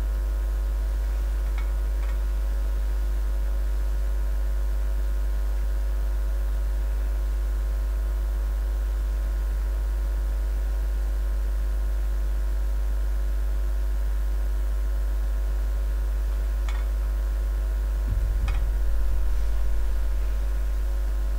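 Steady electrical mains hum, a deep buzz with a stack of fainter steady overtones. A few faint clicks, and a low thud with a short rumble near the end.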